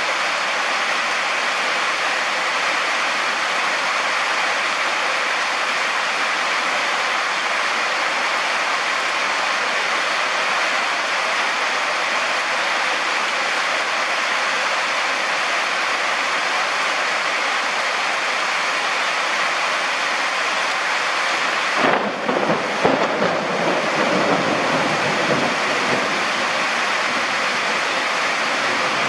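Heavy monsoon rain pouring with a steady hiss. About three-quarters of the way in, a roll of thunder crackles and rumbles over it for a few seconds.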